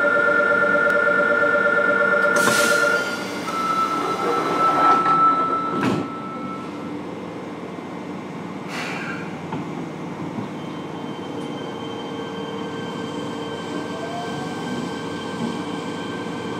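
Inside a Fukuoka City Subway 1000N-series car standing at a station: a loud electronic door-warning tone for about three seconds, then a softer tone, with the sliding doors knocking shut about six seconds in. After that comes the steady hum of the car's electric equipment, with a faint rising whine near the end as it begins to move off.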